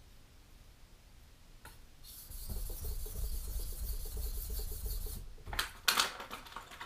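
Kitchen knife blade being stroked across a sharpening whetstone: a steady gritty scraping starts about two seconds in and runs for about three seconds, as the edge is worked to raise a burr. A couple of sharper knocks follow near the end.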